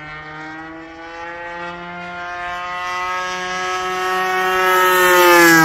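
Engine of a Factor 3D radio-control aerobatic plane in flight, growing louder and creeping up in pitch as it comes closer, then dropping in pitch as it passes overhead near the end.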